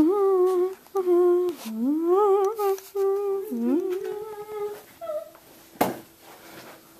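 A voice humming a slow tune in long held notes with gliding pitch changes, stopping about five seconds in, followed by a single soft knock.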